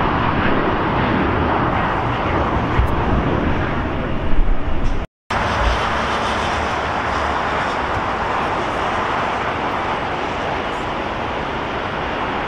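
Jet airliner engine noise, a steady rushing roar, which drops out completely for a moment about five seconds in.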